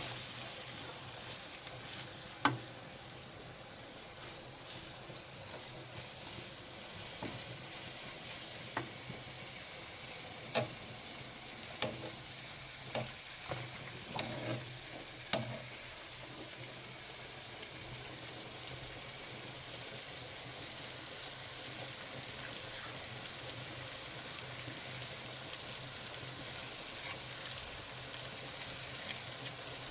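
Food sizzling in a pan with a steady hiss, with a few sharp knocks between about two and sixteen seconds in.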